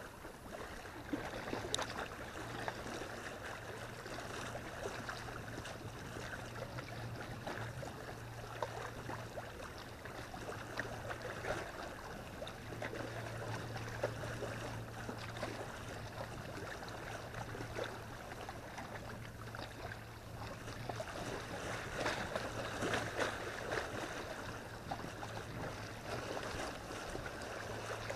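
Small waves lapping and splashing against the lake shore, a steady wash of water with scattered small ticks, over a steady low hum.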